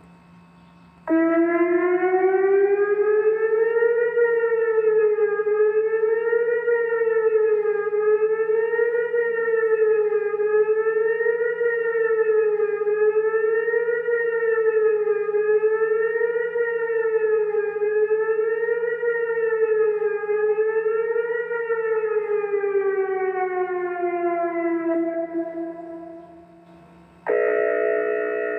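Whelen WPS electronic outdoor warning siren sounding its fast wail. The pitch climbs, then wavers up and down about every two and a half seconds, then slides down and cuts off near the end. A steady air-horn tone with many pitches starts just after it.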